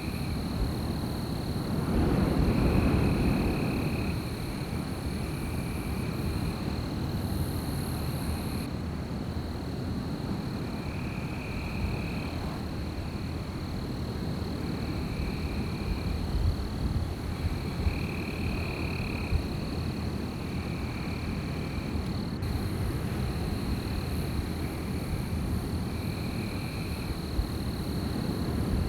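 Wind blowing steadily, gusting louder about two seconds in. Over it runs a steady high-pitched drone, and short, evenly pitched night calls about a second long repeat every couple of seconds.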